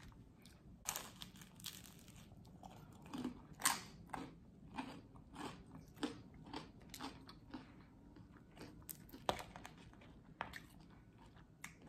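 Close-up biting and crunchy chewing of buttered toast: a bite about a second in, a louder crunchy bite near four seconds, then steady chewing crunches about twice a second.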